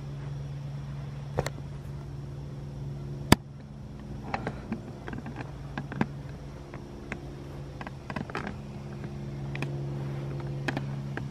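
A steady low machine hum, with scattered small clicks and ticks and one sharper click about three seconds in.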